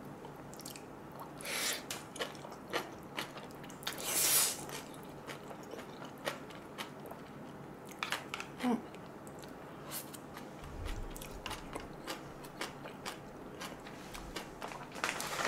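A person eating jjajangmyeon (noodles in black bean sauce) close to the microphone: wet chewing and mouth clicks, with two longer noisy slurps of noodles about two and four seconds in.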